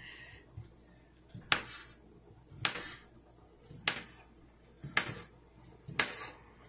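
Chef's knife slicing a kielbasa into rounds, the blade tapping the wooden cutting board at the end of each cut, five taps about a second apart.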